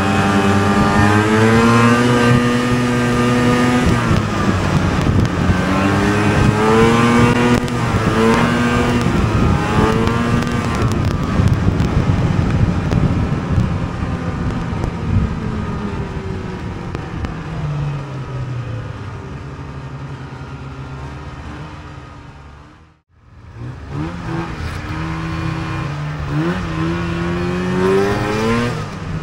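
Two-stroke snowmobile engine running along a trail, its pitch rising and falling repeatedly with the throttle. Near the end the revs sink away, the sound drops out briefly, then returns and climbs again.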